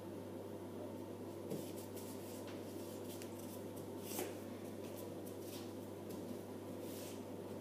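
Faint scuffs and light taps of socked feet moving on a hard floor while dancing, scattered irregularly, the clearest about a second and a half and four seconds in, over a steady low hum of room noise.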